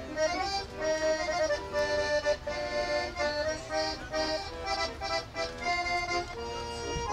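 Instrumental background music: a quick melody of short notes over held chords.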